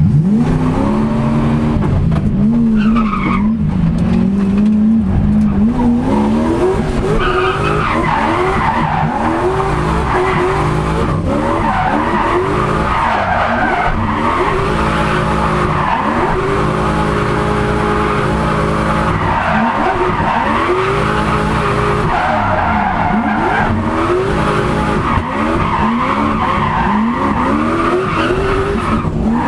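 Turbocharged Lexus 1UZ-FE V8 in a drift car, heard from inside the cabin, revving hard and rising and falling in pitch again and again as it pulls away and drifts. Tyres squeal from about seven seconds in.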